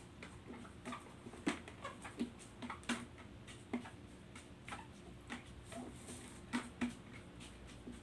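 A hand pressing shredded bamboo shoots down tightly into a large glass jar, packing out the air pockets for fermenting. It gives irregular soft crunches and clicks, about one or two a second.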